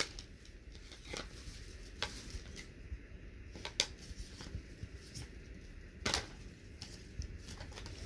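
Cardboard puzzle cards being handled: picked up, shuffled and set down, giving scattered light taps and rustles a second or so apart, one a little louder about six seconds in.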